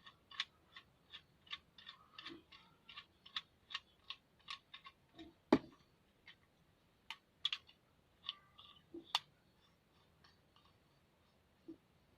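Small plastic clicks, about three a second, then one sharper knock and a few scattered clicks: a smartphone holder being fitted and turned on a tripod head.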